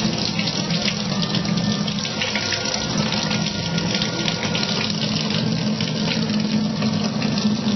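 Kitchen faucet running in a steady stream and splashing into the sink, with a low steady hum under it.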